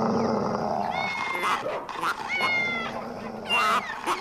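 Cartoon cat meowing: two drawn-out meows, about a second in and just past two seconds, over a steady mix of other animal noises, with a short loud noise near the end.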